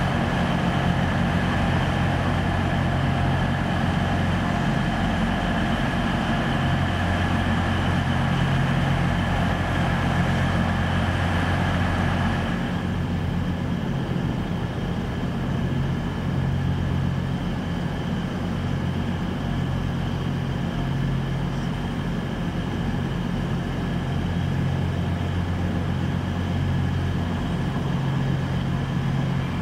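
Diesel multiple-unit trains running at a station: a steady low engine hum with a thin high whine over it. About twelve seconds in, the brighter hiss above the hum drops away and the hum carries on as a class 195 diesel unit approaches slowly.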